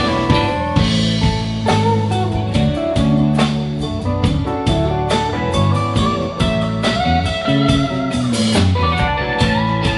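Live band playing an instrumental passage in a bluesy rock style: electric guitars carry a melody line of held and bending notes over bass guitar, drum kit and keyboard.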